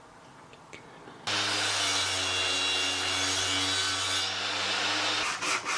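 A power tool runs steadily on wood for about four seconds with a low hum underneath, then stops. Rhythmic back-and-forth rubbing on wood follows near the end, about three strokes a second.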